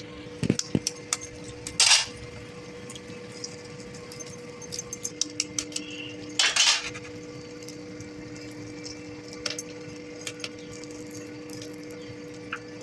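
Kitchen utensils clicking and tapping, with two short scraping bursts about two seconds and six and a half seconds in, over a steady hum.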